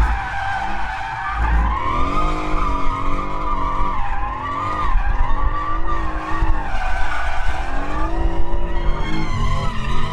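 Tyres squealing continuously as a Mercedes-AMG car drifts, its engine revving up and down several times underneath the squeal.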